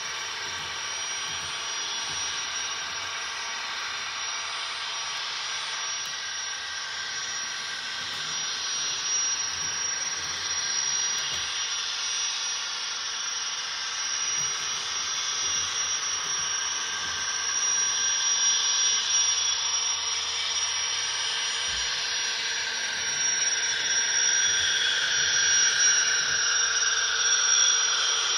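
Sound decoder of an HO-scale Union Pacific gas-turbine locomotive model playing a steady, jet-like turbine hiss through its small onboard speaker. It grows louder as the locomotive nears along the curve, where the model is set to add wheel-flange squeal.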